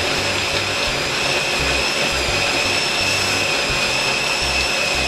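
Small electric food processor (mini chopper) running steadily while blitzing cabbage, its motor giving a constant high whine.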